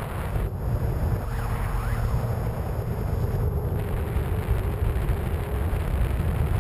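Airflow rushing and buffeting over the onboard camera of a Skywalker 1900 FPV plane in flight, heaviest as a low rumble, with a faint steady drone from its electric motor and propeller.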